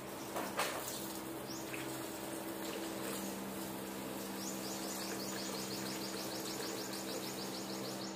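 Water running from a garden hose, spraying and splashing onto a wet rubber floor mat and into a drain as a steady hiss, with a faint low hum underneath. From about halfway, a fast, even high-pitched chirping comes in at about five a second.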